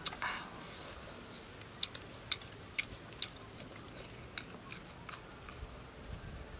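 People eating fried shrimp by hand: crisp clicks and crackles of the shells being peeled and bitten, with chewing, about eight sharp clicks spread irregularly over the few seconds.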